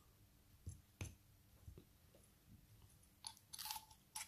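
Faint, scattered clicks and light taps of small metal parts: the Deathwish Modz Unholy V2 RDA and its top cap being handled and screwed onto the Barebones mech tube by hand. The clicks come a few at a time, more closely together near the end.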